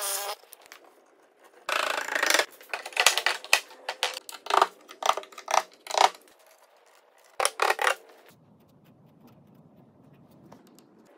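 A mallet driving a wooden drawbore peg into a breadboard end: a run of about eight sharp knocks a few seconds in. Just before, a drill stops running, and there are a few other short bursts of workshop noise.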